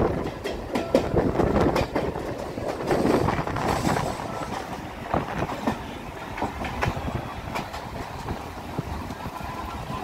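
Running noise inside a moving MEMU electric passenger train coach: a steady rumble with wheels clacking over rail joints and the coach knocking and rattling irregularly.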